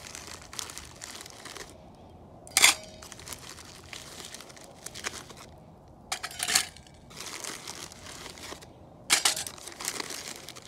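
Plastic bag crinkling as chunks of broken bismuth metal are handled and dropped into a stainless steel mug, with several sharp metallic clinks, each ringing briefly, as pieces land in the mug.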